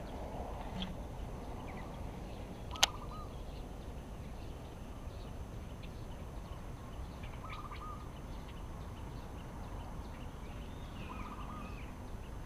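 A bird repeating a short trilling call three times, about three, seven and a half and eleven seconds in, with fainter chirps between, over a steady low background rumble. A single sharp click, the loudest sound, comes just before the first call.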